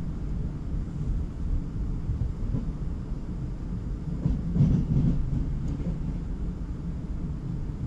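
Renfe series 470 electric multiple unit heard from on board, a steady low rumble of the train running on the rails, with a brief louder rattle about halfway through.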